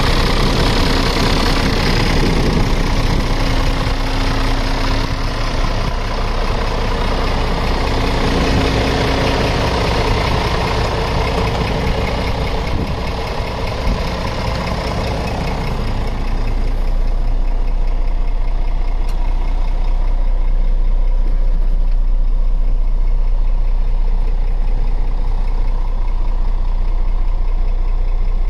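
Scania R 450 truck's 13-litre inline-six diesel engine idling steadily. For the first half it is heard close beside the chassis. Near the middle the sound becomes muffled, as from inside the cab, leaving mainly a low hum.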